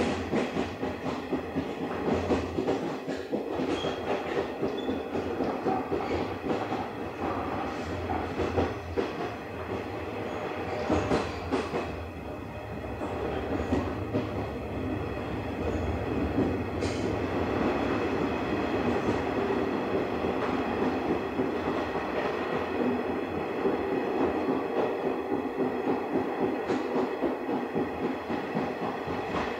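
Running sound of a JNR 50-series passenger coach heard on board: a steady rumble of wheels on rail with a regular clickety-clack over the rail joints and a steady high ring above it. A few sharper clicks come about a third of the way in and again past the middle.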